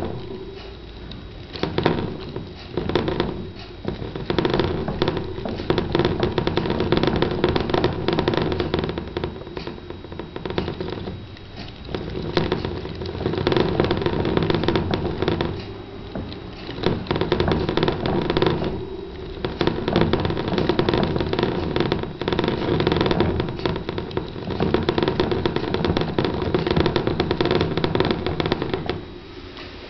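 Clear plastic hamster wheel spinning fast under two Roborovski dwarf hamsters running together: a loud, rapid rattling whir from the wheel on its axle that eases off briefly several times as the wheel slows, then picks up again.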